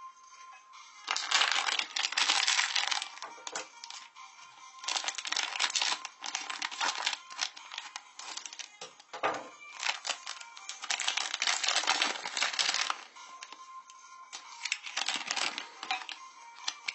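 Foil wrapper of a chocolate surprise egg crinkling as it is unwrapped by hand, in four loud bursts of rustling, over faint background music.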